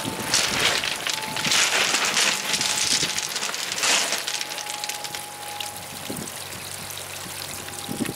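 Water trickling and pouring down a cliff face of old dumped waste onto shingle: a steady splashing hiss, louder for the first four seconds or so and then easing.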